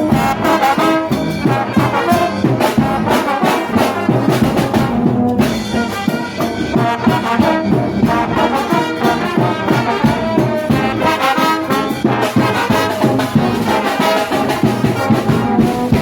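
Brass band playing an Afrobeats song arrangement over a steady beat.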